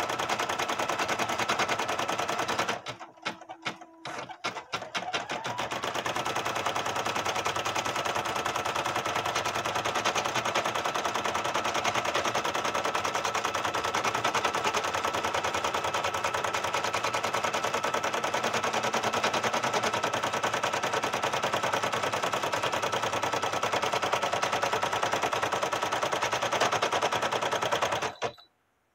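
Brother PE770 single-needle embroidery machine stitching at speed: a fast, even clatter of needle strokes over a steady motor whine. It is sewing the first outline onto the towel, the placement stitch. It falters and drops out about three seconds in, picks up again about six seconds in, and stops suddenly just before the end.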